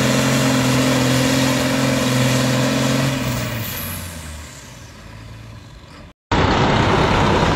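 Allis-Chalmers 7060 tractor's diesel engine running steadily at full load pulling the sled, then throttled back about three seconds in, its sound dying away with a high whine falling in pitch. After a short dead silence near six seconds, a loud, even rumbling noise starts.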